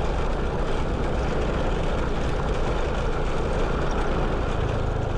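Motorcycle engine running while riding at a steady pace, with heavy wind rush on the action camera's microphone. A low engine hum grows stronger near the end.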